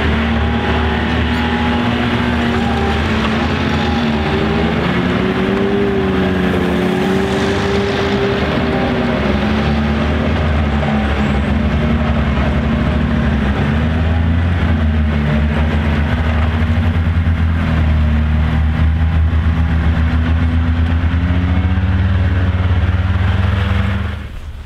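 Grooming snowmobile engines running at low speed as the sleds pull away, a steady note whose pitch rises and falls gently. It cuts off suddenly near the end.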